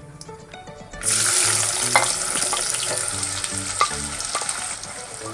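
Chopped onions frying in hot oil in a kadai, a loud sizzle that starts suddenly about a second in and slowly eases, with a spatula scraping and stirring them a few times.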